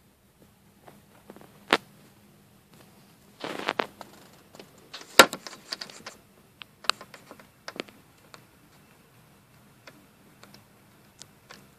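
Scattered sharp clicks and short scraping rustles, the loudest a single sharp click about five seconds in, over a faint steady low hum.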